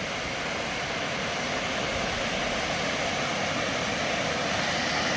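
Steady rush of water pouring over a spillway, slowly growing louder.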